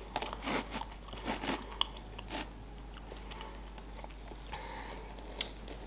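Close-miked chewing of soft dessert with small wet mouth clicks and a spoon cutting into cake. The clicks are busiest in the first half and thin out after.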